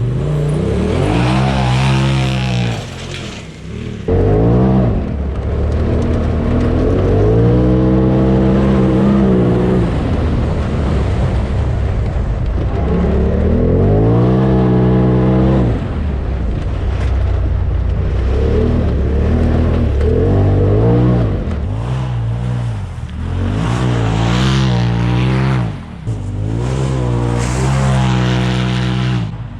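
Polaris RZR Turbo side-by-side's turbocharged engine revving hard and easing off again and again, its pitch climbing and dropping every few seconds as it is driven aggressively, with a brief drop-off about three seconds in.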